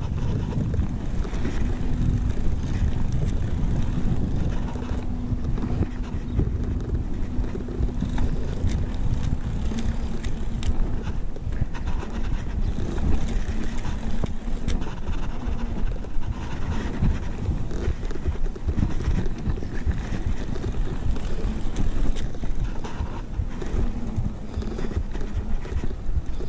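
Wind buffeting a handlebar-mounted action camera and mountain-bike tyres rumbling over a concrete skatepark while riding, with small knocks and rattles from the bike over the bumps.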